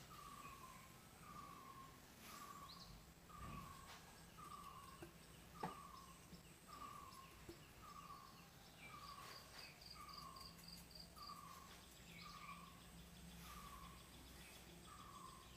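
Faint outdoor background of a small animal calling: one short falling note repeats about once a second, with a brief run of quick high chirps partway through. A single faint click about six seconds in.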